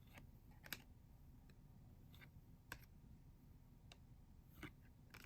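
Faint, irregular clicks and ticks of trading cards being handled and flipped through one by one, over near-silent room tone.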